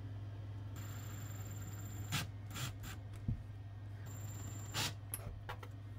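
A few faint clicks and knocks from hands fitting a metal duct adapter onto a PVC pipe, over a steady low hum.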